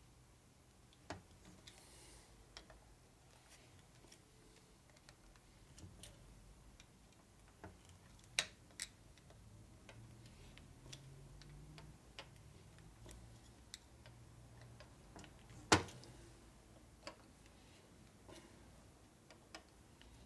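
Sparse light clicks and clinks of hand tools and small metal parts being handled, with a sharper knock about three-quarters of the way through.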